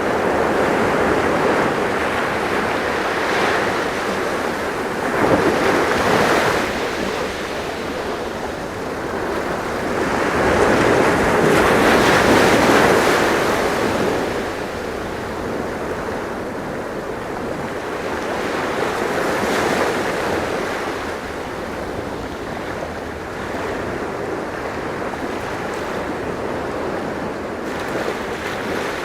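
Sea waves washing ashore in a continuous rush that swells and ebbs, with stronger surges about five seconds in and again around ten to fourteen seconds.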